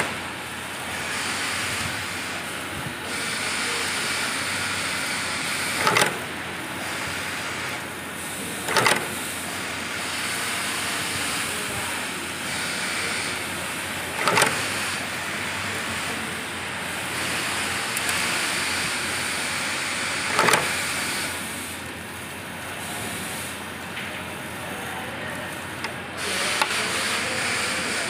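Snap-button attaching press punching metal snap fasteners into cloth: sharp strikes every few seconds over a steady hiss.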